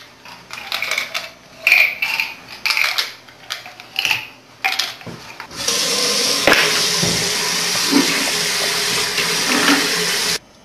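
Scattered short rustles and knocks, then about five seconds of steady rushing noise like running or flushing water, which cuts off suddenly near the end.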